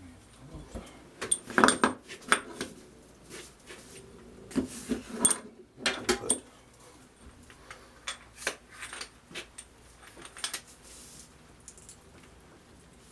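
Irregular metal clinks and clanks of tools and engine parts being handled, loudest about a second and a half in and again around five to six seconds in.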